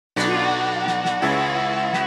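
Background music of sustained chords under a held high note, coming in suddenly at the very start and changing chord about a second in.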